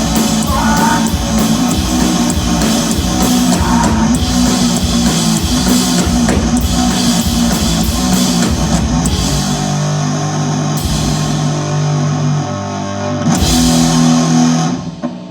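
A live rock band playing loud electric guitar, bass and drum kit with no vocals. About nine seconds in the drums stop and held guitar chords ring out, with one more full-band hit near the end as the song closes.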